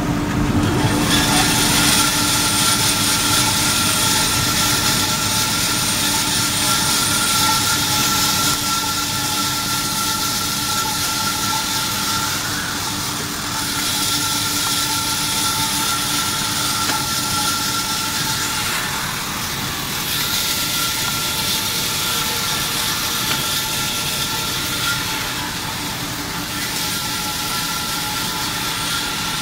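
Automatic band saw running: a steady machine hum carrying a few constant tones under a strong hiss. The hiss drops back and comes up again several times.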